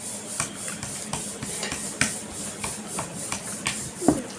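Spoons clicking and scraping against plates while eating: irregular small taps, about two or three a second, over a steady background hiss.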